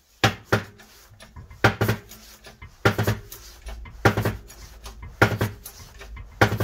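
20-ton hydraulic bottle jack in a homemade press being pumped by hand, a metallic clack with each stroke of the handle, six strokes about a second apart. The press is pushing a new wheel hub bearing into its hub, and the bearing is nearly seated.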